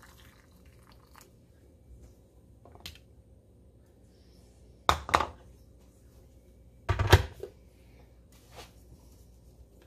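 A few clicks and knocks of canning utensils and glassware being handled: two sharp clicks about five seconds in and a heavier knock about seven seconds in, with a couple of fainter ticks.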